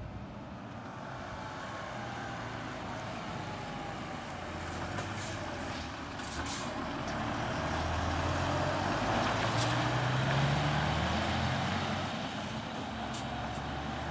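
Diesel engine of a turntable ladder fire engine running as the truck pulls out and drives past, growing loudest about eight to eleven seconds in, with tyre hiss on the wet road and a few short hisses of air.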